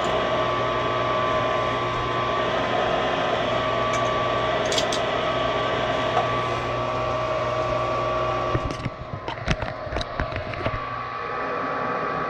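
Furnace fan motor running with a steady whir and whine. A few sharp clicks and knocks sound about three-quarters of the way through, while the whir briefly drops.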